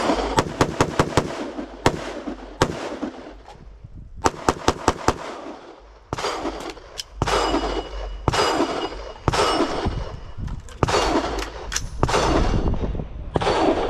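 Live-fire rifle-to-pistol transition string: five quick rifle shots, two single rifle shots about two and three seconds in, then five quick pistol shots about four to five seconds in. After that come further echoing gunshots, about one a second.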